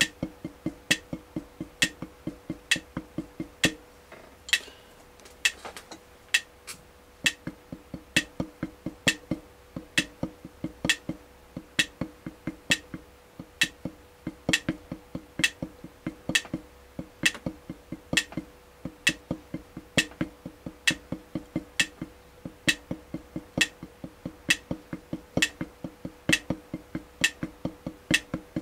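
Drumsticks striking a rubber drum pad in a steady rhythm, several dull strokes a second, with a brief pause about four seconds in. A sharp click keeps time about once a second throughout, carrying on through the pause.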